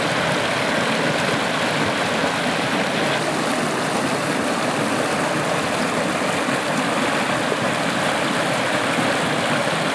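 Shallow rocky mountain stream flowing and splashing over stones in small cascades, a steady water noise.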